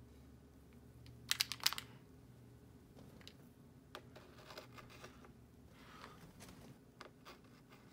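Paint marker tip pressing and rubbing over a paint-covered test board, with a quick burst of sharp clicks about a second and a half in and soft scattered ticks after.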